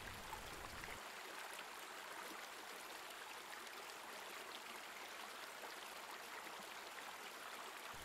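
Shallow rocky forest stream running over stones: a faint, steady rush of water. About a second in, the low rumble drops away.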